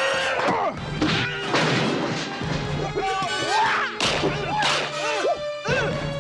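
Kung fu movie style fight sound effects over background music: repeated thwacks and crashes mixed with short swooping vocal cries.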